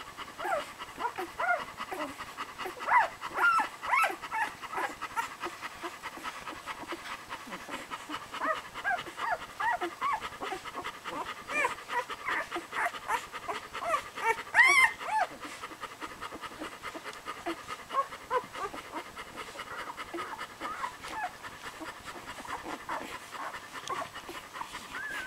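Newborn puppies squeaking and whimpering while they nurse, with many short high squeaks throughout and one louder squeal about 15 seconds in. Steady panting from the nursing mother dog runs underneath.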